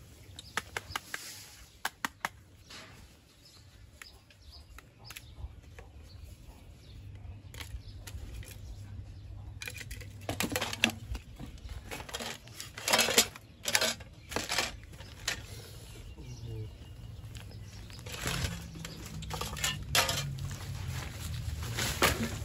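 Discarded smartphones and phone casings clicking and clattering against one another as they are picked up and sorted by hand among plastic rubbish. The clicks come in clusters and are busiest in the second half.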